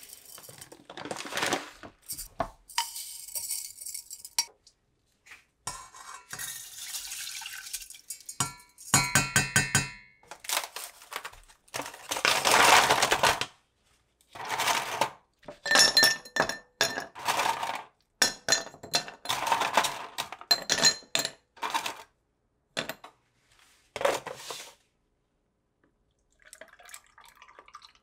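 A run of kitchen handling sounds. Dry rice grains pour into a glass measuring jug, with clattering and a loud rushing spell in the middle. Then a run of sharp clinks comes as ice cubes drop from a plastic ice tray into a tall drinking glass, and near the end a faint pour of juice begins into the glass.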